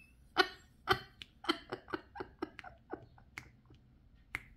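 A woman laughing in short bursts, about four a second, fading out, with one sharp click near the end.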